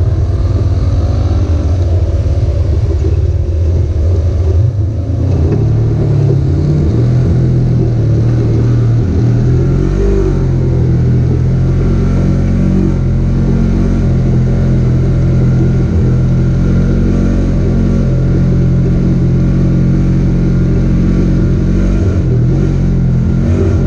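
Side-by-side UTV engine running while driving a rough dirt trail. Its drone settles to an even, steady pitch about five seconds in.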